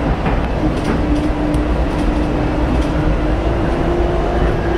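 DFW Skylink people-mover train running along its elevated guideway: a steady rumble under a motor whine that slowly rises in pitch.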